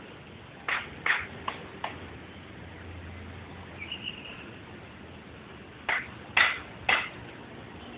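Sharp knocks or clacks in two quick groups: four about a second in and three near the end, the loudest of these in the last group. A brief high chirp comes between them.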